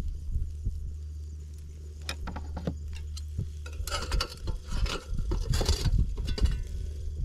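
Metal spatula scraping and clinking against the steel grate of a kettle grill as it works under a whole grilled fish, in clusters from about two seconds in, heaviest near the middle. A steady low rumble runs underneath.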